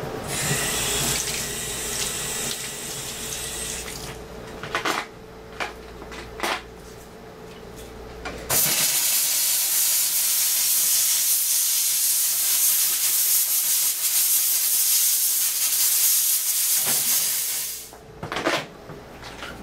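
Tap water running hard into a utility sink as a freshly rhodium-plated bracelet is rinsed. The loud steady hiss starts about eight and a half seconds in and stops shortly before the end. Before it come a softer hiss and a few sharp clicks.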